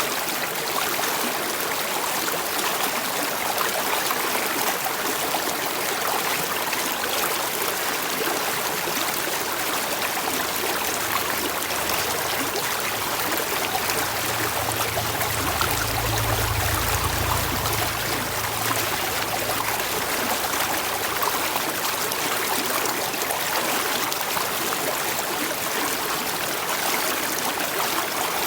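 Running water flowing steadily, an even rushing hiss like a stream. A low rumble joins it for a few seconds about halfway through.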